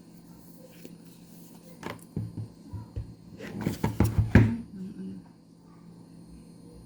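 Package being handled and opened by hand: a few knocks and clicks, then a dense run of them about three and a half to four and a half seconds in.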